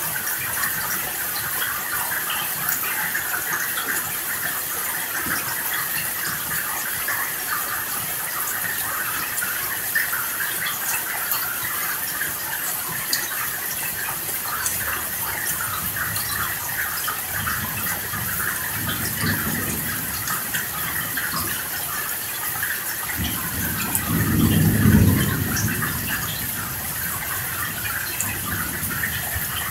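Steady rain falling, with a low rumble of thunder past the middle and a louder, longer thunder rumble near the end.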